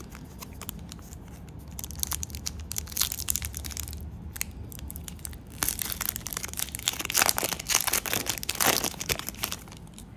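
A trading-card pack's plastic wrapper being torn open and crinkled, in two spells of dense crackling, the second louder.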